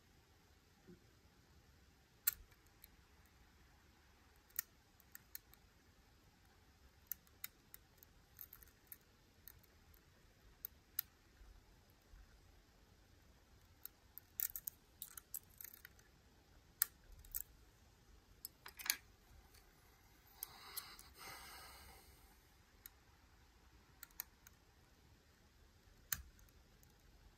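Faint, irregular clicks and taps of lock-picking tools working in the keyway of a Miwa U9 lock, with one brief soft scraping rustle about three-quarters of the way through.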